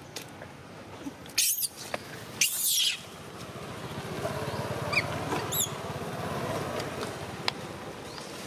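Long-tailed macaque calls: two short, harsh screeches about a second apart, then a few brief high squeaks a couple of seconds later, while a low rumble swells in the background.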